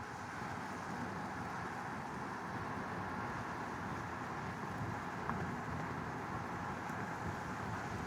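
Steady road and engine noise heard from inside a moving car, a low even rumble with no distinct events.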